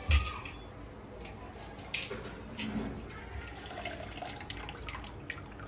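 Water splashing and dripping as handfuls of soaked rice are scooped out of a bowl of washing water, with several short, sudden splashes.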